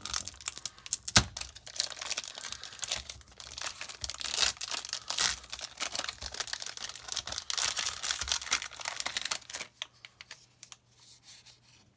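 Foil wrapper of a Zendikar Rising booster pack being torn open and crinkled by hand: a dense run of crackles and rips, with one sharp snap about a second in. It thins out to a few faint clicks near the end.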